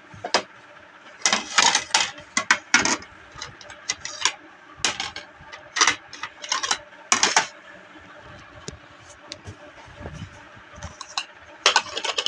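Plates, bowls and serving spoons of a dinner set clattering and clinking as they are picked up and set down against each other, in short clusters of knocks with gaps between.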